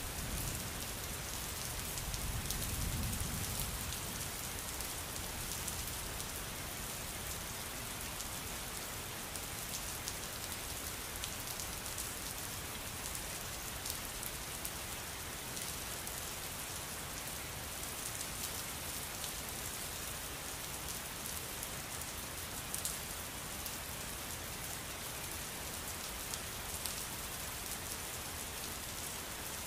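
Steady rainstorm, the rain falling evenly, with a low rumble of thunder that swells and fades between about two and four seconds in. Scattered sharp ticks sound over the rain.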